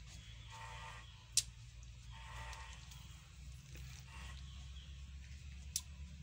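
Livestock calling faintly several times in a row, over a steady low rumble. Two sharp clicks, about a second and a half in and near the end, are the loudest sounds.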